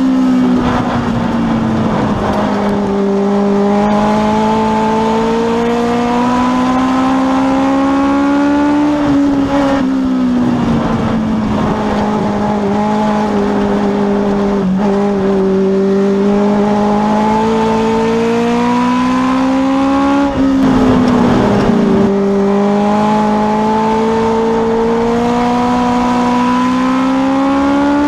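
Legends race car engine, a four-cylinder Yamaha motorcycle engine, heard from inside the cockpit under racing load: its pitch climbs steadily for several seconds down each straight and drops sharply when the driver lifts for the turns, about ten and twenty seconds in.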